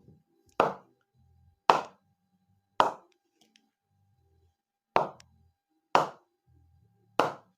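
A white cricket ball struck against the face of a wooden cricket bat, six sharp knocks with a short ring after each. They come mostly about a second apart, with a longer pause in the middle.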